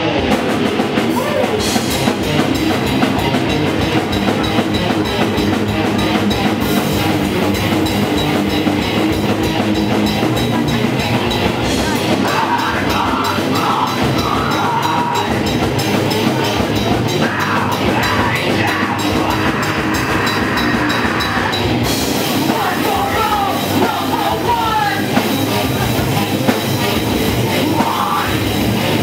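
Live rock band playing loud: distorted electric guitar and drum kit, with a singer shouting into the microphone from about twelve seconds in.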